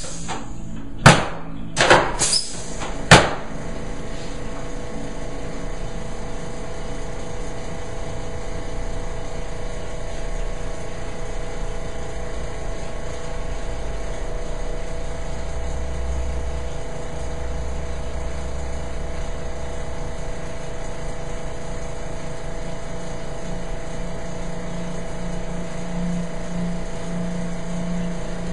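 Four sharp clacks in quick succession near the start, typical of a chiropractic drop table's sections dropping under a thrust, then a steady low hum.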